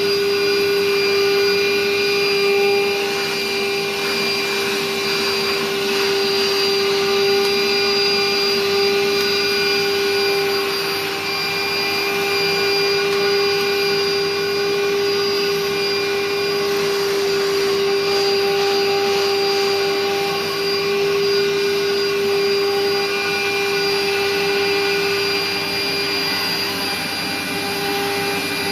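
Royal-made Dirt Devil Can Vac canister vacuum with an 1100-watt motor, running steadily with a constant motor whine over the rush of suction air.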